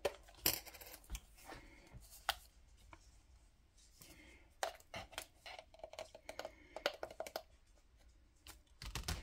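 Scattered light clicks and short scrapes of a plastic measuring spoon working in a spice jar as ground cumin is measured out.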